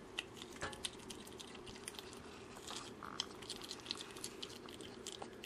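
A skunk gnawing kernels off a cooked corn cob: faint, irregular crunches and small clicks of teeth on the kernels, keeping up throughout.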